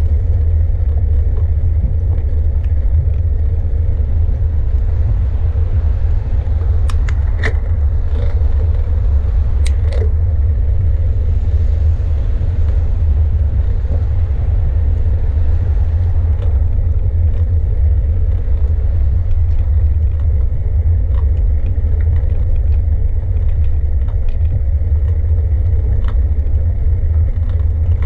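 Steady low rumble of a bicycle ride: wind and road noise on the microphone, with a few sharp clicks or rattles about seven to ten seconds in.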